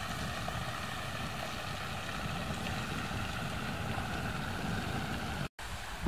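Water pouring steadily from two outlet pipes into a concrete drainage channel: a constant splashing rush with a low rumble under it. It breaks off abruptly near the end.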